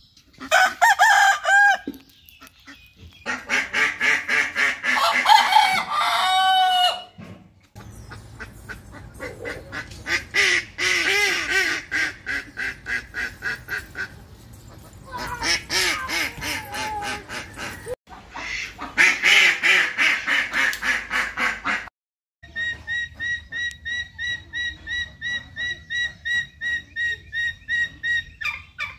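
Roosters crowing and ducks calling in a string of short clips that cut abruptly from one to the next. Near the end comes a long run of rapid, evenly repeated calls at one steady pitch.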